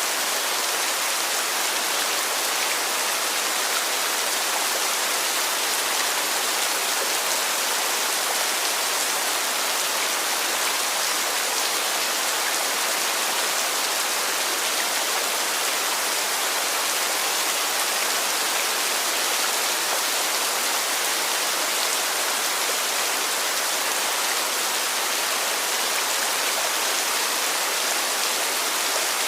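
Heavy rain falling: a steady, even hiss of dense rainfall with no let-up.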